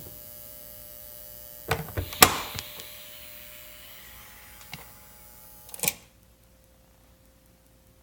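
Cuckoo rice cooker giving off a steady electrical hum and high whine while plugged in, with a few sharp clicks. About six seconds in, a click comes and most of the noise cuts out suddenly, leaving a faint steady tone. This is the abnormal noise the owner hears whenever the cooker is on AC power.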